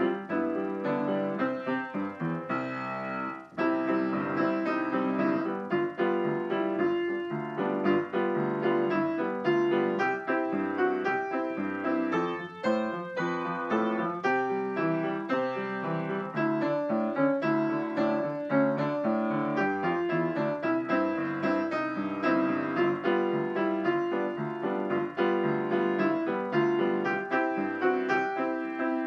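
Piano playing the school song as an instrumental sing-along accompaniment, with melody and chords moving steadily.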